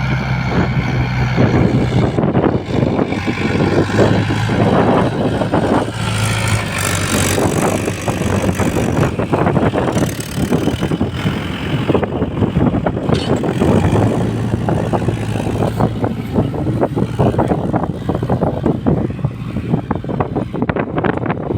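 Mahindra farm tractor's diesel engine running in the field: a steady low hum under a rough, continuous clatter.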